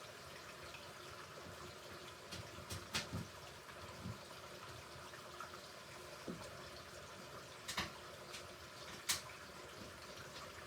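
Hoover Ecologic Computer Washer 1300 during a rinse: a faint, steady wash of water running and sloshing in the machine, with a few short clicks and splashes.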